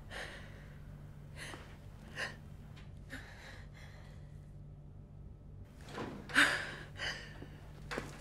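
A woman breathing in short, ragged breaths and gasping, the sharpest gasp about six and a half seconds in, over a steady low hum.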